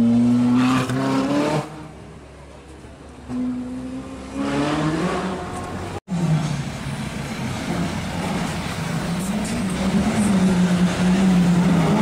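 High-revving supercar engines. One accelerates with a rising note that stops about a second and a half in. Another rises, then falls away as it passes. After a cut, an engine runs at low revs with a note that wavers up and down.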